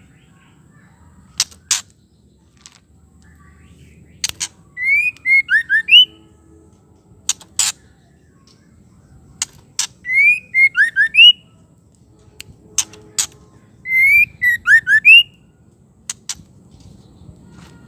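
White-rumped shama calling: three short phrases of a few sliding whistled notes, each about a second long and roughly four to five seconds apart, with sharp clicking notes scattered between and around them.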